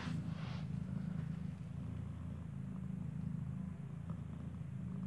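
Mother cat purring low and steadily close to the microphone while her newborn kitten nurses. A brief soft noise comes at the very start.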